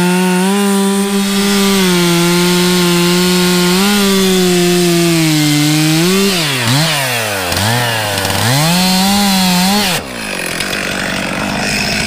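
Gas chainsaw running at high revs cutting up a downed pine tree, its pitch dipping and rising several times in the cut. About ten seconds in, the saw sound stops abruptly and a lower, rougher engine sound takes over.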